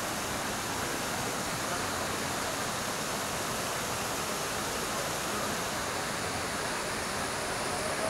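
Waterfall pouring down a rock face into a pool: a steady, unbroken rush of falling water.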